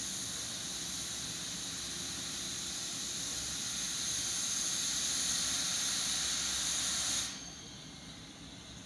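Steam locomotive 41 018 venting steam: a steady hiss that grows a little louder, then cuts off abruptly about seven seconds in.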